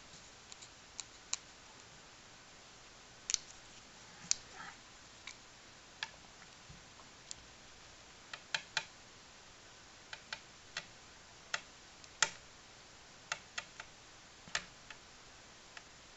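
Sharp, irregular light clicks and taps, about twenty, some in quick pairs, as a cat paws at a thin plastic stick poked through the gap between two doors and the stick knocks against the door edges.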